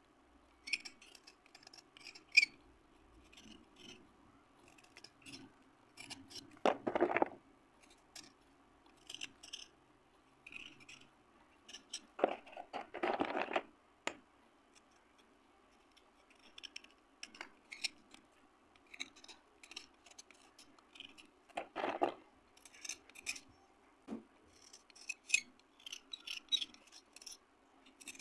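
Cat brand slate pencils handled with bare fingers: many small crisp clicks, taps and scratches as the sticks are rubbed, crumbled and knocked together. There are a few louder scraping sounds, about a quarter of the way in, near the middle and about three quarters of the way in.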